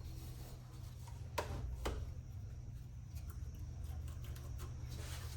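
Two light clicks, then a few fainter ticks, from parts of a key cutting machine being handled while its drive belt is fitted, over a steady low hum.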